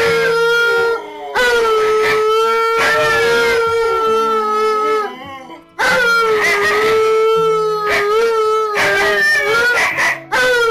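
A Siberian husky and an Alaskan malamute howling together in long, drawn-out howls, with short breaks about a second in and about five seconds in. Background music plays underneath.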